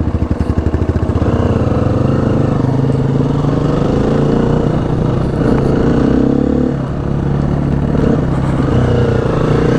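Single-cylinder four-stroke dirt bike engine running at low revs under a rider, its pitch rising and falling with the throttle, with a brief dip about seven seconds in.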